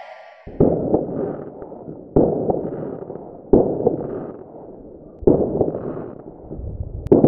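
Aerial fireworks going off: five loud bangs, one every one and a half to two seconds, each followed by a rush of smaller pops that dies away.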